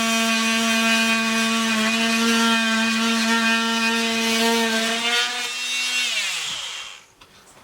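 Dremel rotary tool running at a steady high whine while cutting an opening in the wall. It is switched off about six seconds in, and its pitch falls quickly as it spins down.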